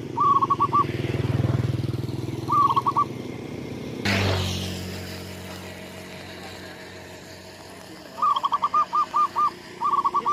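A bird calling in quick runs of five or six short, identical whistled notes, repeated several times, over the steady drone of an engine. A sudden noise about four seconds in.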